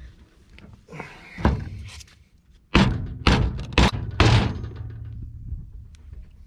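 Four heavy thuds about half a second apart, each with a short, low hollow ring: a glued PVC fitting being knocked down onto the drain pipe to seat it before the glue sets.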